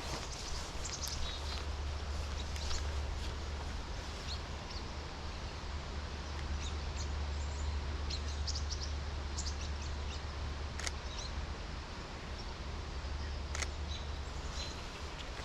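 Steady rain and wind in a forest, with a constant low rumble underneath and scattered short bird chirps in the distance. Two sharp clicks stand out, about eleven seconds in and again near thirteen and a half.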